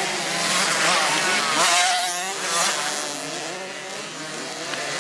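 Several small youth motocross bikes racing past, their engines revving, with the pitch rising and falling as riders open and close the throttle. The engine noise eases off around three to four seconds in, then builds again as the next bikes come up.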